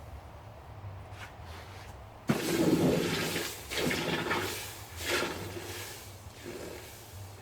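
Hot forged copper plunged into a water quench, hissing and bubbling. It starts suddenly about two seconds in and comes back in three or four shorter surges, over a steady low hum.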